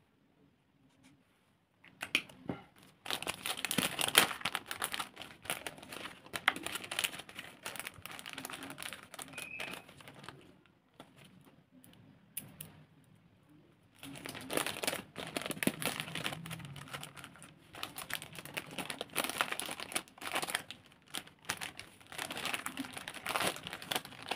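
Clear plastic bag crinkling as it is handled and a card and bead bracelet are slipped into it, starting about two seconds in, with a quieter pause of a few seconds midway.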